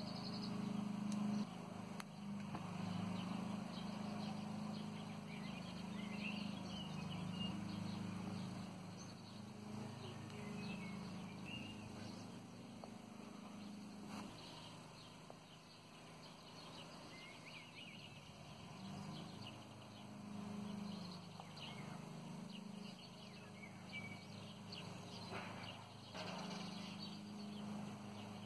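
Outdoor ambience with small birds chirping now and then over a steady low hum, and a few faint clicks of steel chainmail rings being handled.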